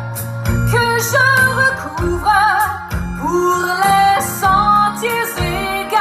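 Recorded French song with a woman singing a wavering melody over plucked guitar and bass, played back loud through a TPA Shark 10-inch line array driven by a P181SP active 18-inch subwoofer.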